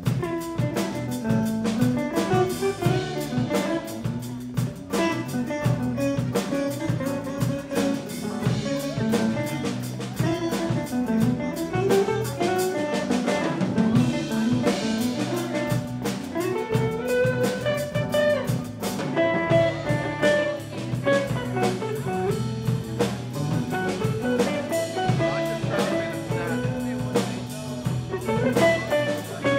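Live smooth-jazz band playing: a hollow-body electric guitar leads the melody over bass and drum kit.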